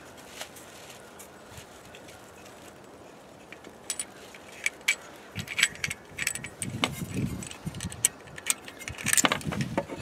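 Small metal parts of a water pump pressure switch clicking and clinking as it and its lock nut are handled and fitted, in a quick irregular run from about four seconds in, some clinks with a bright metallic ring. There is dull handling rustle underneath.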